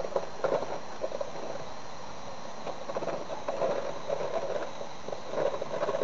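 Irregular rustling and crackling over a steady hiss, with a few light clicks: handling noise picked up by a hidden camera's microphone.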